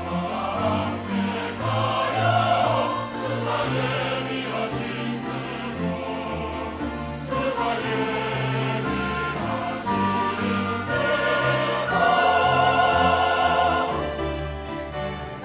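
A large mixed church choir singing a hymn anthem, accompanied by violins, cellos and piano, swelling louder about twelve seconds in.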